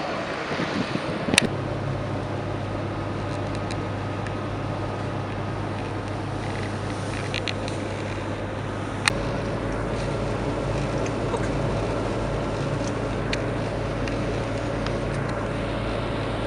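Steady road and engine noise inside a moving car, with a low hum under it. A sharp click comes about a second and a half in and another about nine seconds in.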